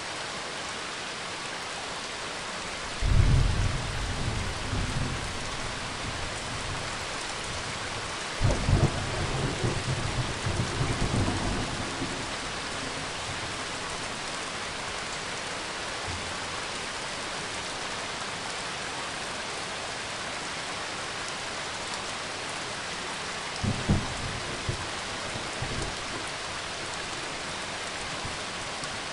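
Rain and thunder: a steady hiss of rain throughout, with three thunder rumbles. A loud one comes about three seconds in, a longer rolling one runs from about eight to twelve seconds, and a shorter one comes a few seconds before the end.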